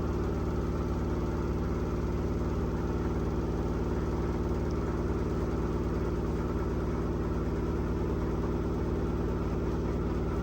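An engine idling steadily: a low, even hum with several steady tones that does not change.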